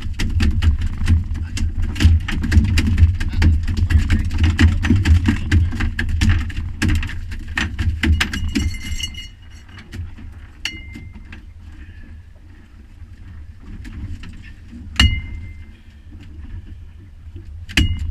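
Halibut thrashing on a boat deck, with a rapid, dense clatter of knocks and slaps over a heavy low rumble for the first half. Then it goes quieter, and three single blows of a fish club land, each a sharp knock with a short metallic ring, the fish being clubbed to subdue it.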